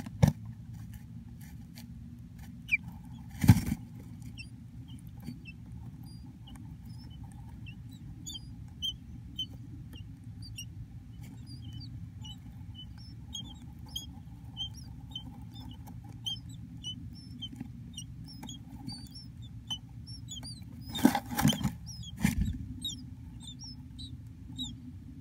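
Bluebird nestlings begging in the nest box as a parent feeds them: a long run of thin, high peeps, about two or three a second, over a steady low rumble. There are a few loud thumps near the start and near the end.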